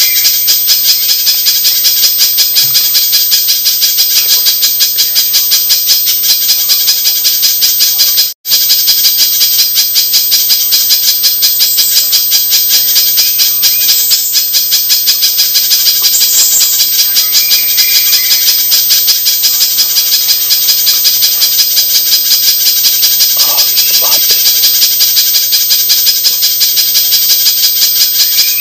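Spiderhunter (pijantung) call played as a bird lure: a loud, rapid, steady rattling run of high notes with a few short chirps over it. It breaks off for an instant about eight seconds in, then carries on.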